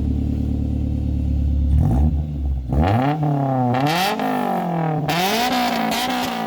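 Honda S2000's four-cylinder engine breathing through a Buddy Club Spec II full exhaust: a steady low drone for about two seconds, then revs climbing and dropping several times.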